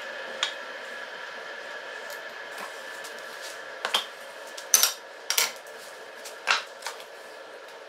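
Sharp clicks and knocks of small wooden pattern pieces and hand tools being handled and set down on a workbench, once just under a second in and in a cluster about four to seven seconds in, over a steady background hum.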